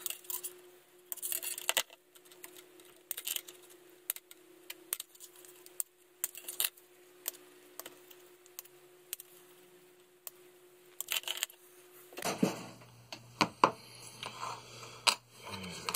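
Plastic model-kit sprue being cut with side cutters: irregular sharp snips and clicks, with plastic parts handled and set down on a cutting mat, busier near the end.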